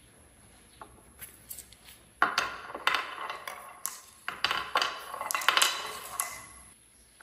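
Marbles rolling and clattering down a wooden marble run track: a few light clicks, then a dense run of rattling clicks and knocks that dies away near the end.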